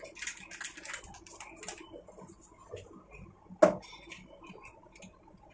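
A plastic milk packet crinkling and rustling as it is handled, with scattered small clicks and one sharp knock about three and a half seconds in.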